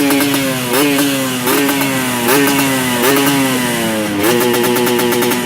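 Two-stroke Yamaha RX motorcycle engine running through an aftermarket racing exhaust, blipped about once a second so the pitch jumps up and eases back down each time, then settling to a steadier, faster-pulsing run near the end.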